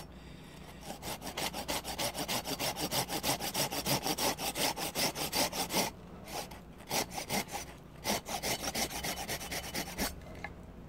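Folding hand saw cutting a stop cut across a cherry spoon blank in quick, short back-and-forth strokes, pausing briefly twice in the second half.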